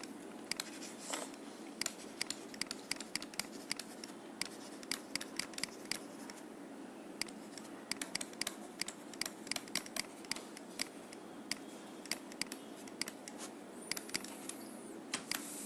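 Stylus tip tapping and scratching on a tablet or pen-display screen while handwriting equations: an irregular stream of sharp little ticks, several a second, over a steady faint background hum.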